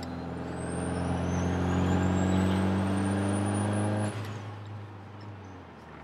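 Built big-turbo Mazdaspeed6's turbocharged 2.3-litre four-cylinder pulling hard through a gear, heard from inside the cabin: the engine note climbs steadily with a rising high turbo whistle over it. About four seconds in, the throttle is lifted and the engine note and whistle cut off suddenly, leaving quieter road noise.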